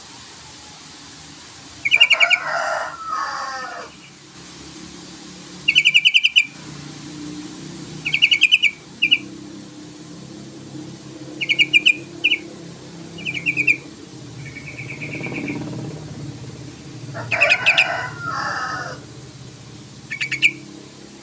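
Yellow-vented bulbul (trucukan) calling: short bursts of fast, chattering repeated notes about seven times, twice running on into a lower warbling phrase.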